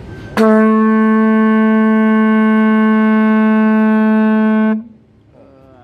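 A conch shell trumpet blown in one long, steady note of about four seconds that sounds like a ship's horn. The note is very loud and starts about half a second in, then cuts off sharply.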